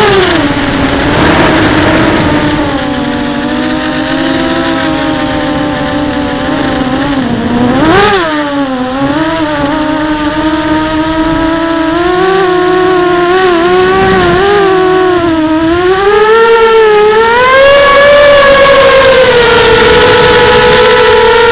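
Quadcopter's DYS 2204 1960 KV brushless motors spinning 5045 bullnose propellers on a 4S battery: a loud buzzing whine whose pitch rises and falls with the throttle. There is a quick sharp throttle punch about 8 seconds in, and the pitch climbs and holds higher near the end.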